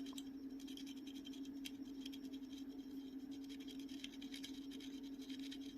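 Faint light scratching and ticking of a tool working paste on a phone's circuit board as it is cleaned, over a steady low hum.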